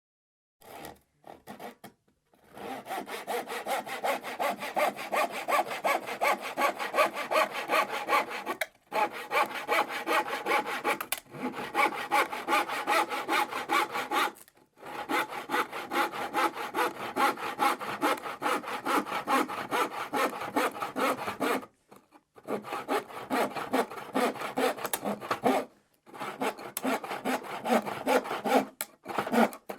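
Handsaw cutting through plywood: a few short starting strokes, then long runs of quick back-and-forth strokes, broken now and then by brief pauses.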